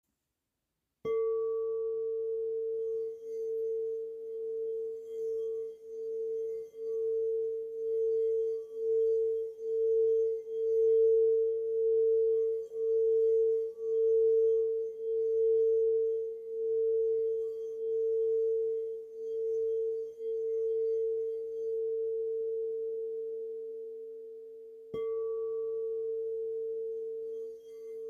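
Singing bowl struck about a second in, then ringing with one steady tone that swells and fades about once a second. It is struck again near the end.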